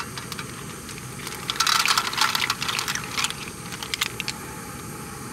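Surf clams in their shells tumbling out of a plastic bag into a pan: a quick run of clattering shell clicks from about one and a half to three seconds in, then a few scattered clicks.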